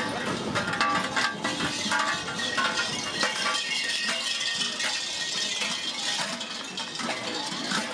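Large bells worn on the belts of Perchten costumes clanging and rattling without pause as the runners run and shake them.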